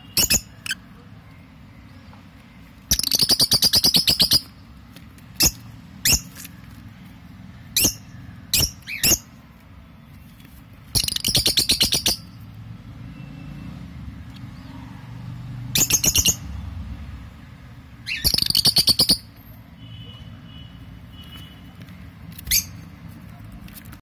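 Peach-faced lovebirds calling in the nest box: four loud bursts of rapid chattering calls, each about a second long, with short single chirps between them.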